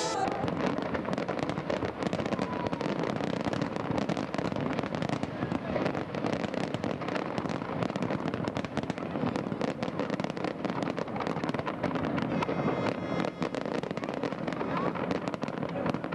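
Fireworks display: continuous dense crackling and popping, with people's voices underneath.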